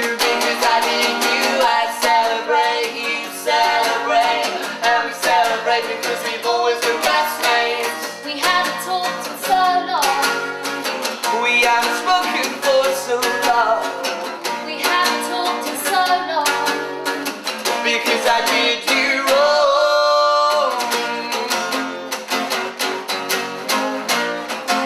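Acoustic guitar strummed steadily while a man sings a song over it, with a long held sung note about twenty seconds in.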